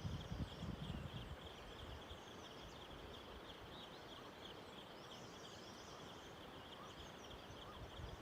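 Faint outdoor natural ambience: a steady, high-pitched chirring, with a few short bird-like calls. There is a low rumble of wind on the microphone in the first second.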